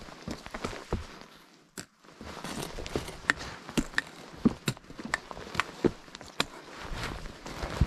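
A hiker's footsteps on a trail: irregular crunches and scuffs, with a short quiet gap about two seconds in.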